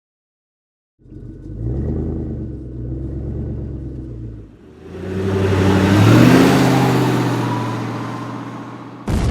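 Car engine sound effect: after a second of silence the engine starts running and revs, then accelerates with a rising pitch and a growing rush that peaks and slowly fades as it drives off. A different sound cuts in abruptly near the end.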